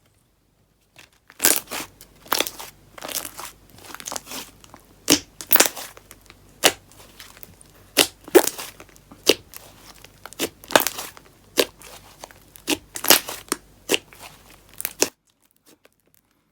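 Fluffy slime being squished, pressed and stretched by hand, making dense runs of sharp crackling pops and clicks. The sound cuts off suddenly near the end.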